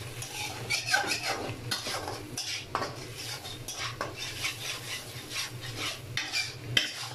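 A slotted metal spatula scraping and clinking against a steel wok in quick, irregular strokes, stir-frying chicken and egg in oil, with light sizzling underneath.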